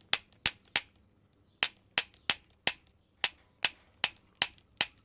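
Small jeweller's hammer lightly tapping the brass body of a padlock, about a dozen sharp, light taps at two to three a second with a short pause about a second in. The taps are meant to bring up the outlines of the brass plugs over the pin chambers.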